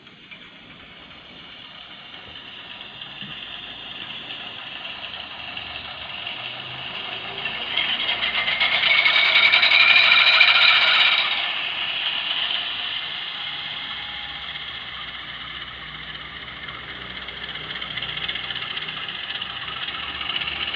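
Model locomotive's sound decoder playing a GE 7FDL 16-cylinder diesel start-up through its small onboard speaker: the engine builds up, is loudest about ten seconds in, then falls back to a rough-sounding idle.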